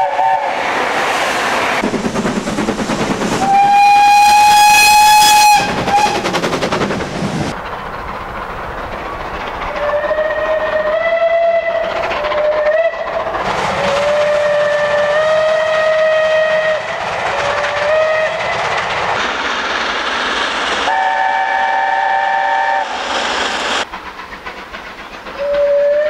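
Steam locomotive whistles sounding in turn over the rumble of moving trains. One long, loud blast comes a few seconds in, then a string of short and longer toots over several seconds. Near the end, a chord-like chime whistle is held for a few seconds, and after a short lull another whistle begins.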